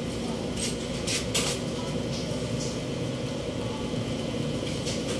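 A haircut at the barber's chair: a steady low electric hum with a few short, crisp snips.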